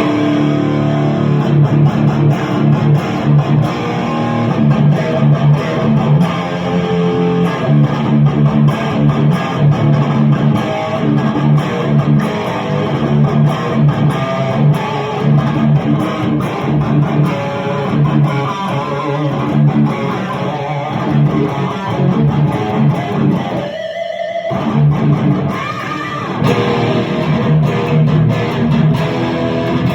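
Electric guitar played through a Marshall amplifier, continuous riffing and strumming, with a brief break about three-quarters of the way through.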